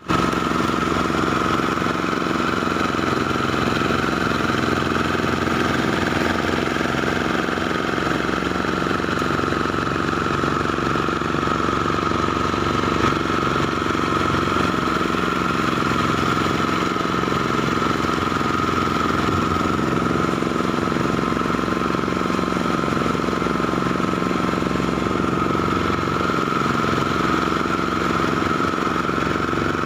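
Engine-driven rice thresher running steadily, the motor's drone joined by a constant high whine.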